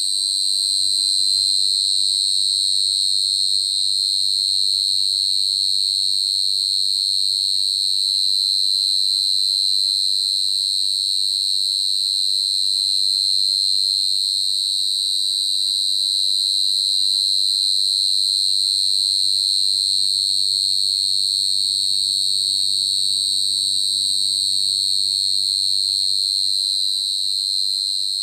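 House cricket chirping: a loud, unbroken high-pitched trill that holds steady throughout.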